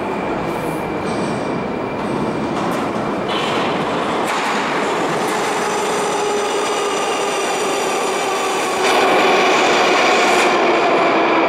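Metro train arriving at an underground station: a continuous rumble of wheels on the rails with steady whining tones on top. It gets louder about nine seconds in as the cars run past close by.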